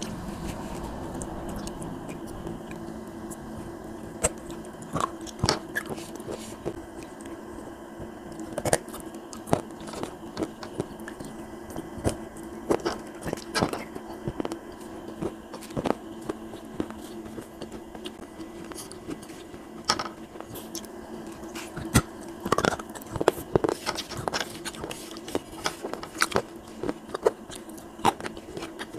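Close-miked chewing and biting of wet clay paste made from clay pots, with sharp, irregular crunches and wet mouth clicks that come thicker in the second half. A steady low hum runs underneath.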